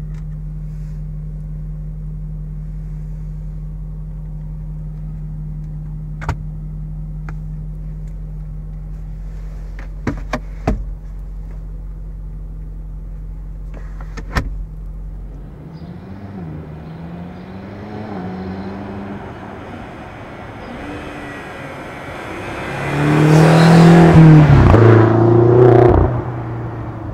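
2015 BMW X6 M's twin-turbo V8 idling steadily, heard from inside the cabin, with a few sharp clicks from the centre console lid and glovebox being handled. About sixteen seconds in it changes to the V8 heard from outside, rising and falling in pitch, then loud for about three seconds as the car accelerates past near the end.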